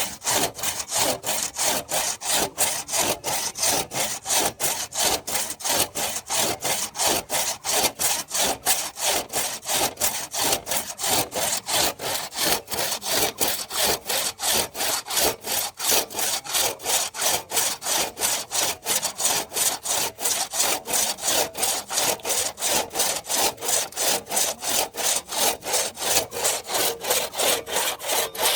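Hand saw cutting through tree wood in steady, rhythmic back-and-forth strokes, about three to four a second.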